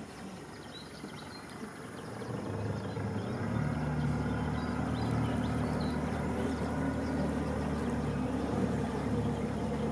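Outboard motor of a river cruise boat running, a low steady hum that swells about a third of the way in and then holds, with faint bird chirps in the background.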